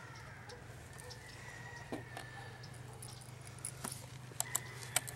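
A few faint, sharp clicks and ticks of a small screwdriver working the screws out of a laptop screen's mounting brackets, over a steady low hum.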